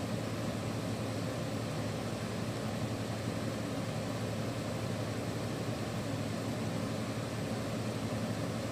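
Steady low hum with a faint hiss underneath: room background noise with no distinct events.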